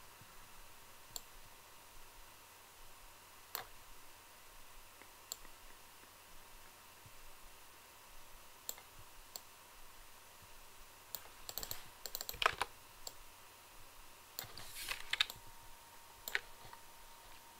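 Scattered clicks from a computer mouse and keyboard, with two busier runs of clicking in the last third, over a faint steady hum.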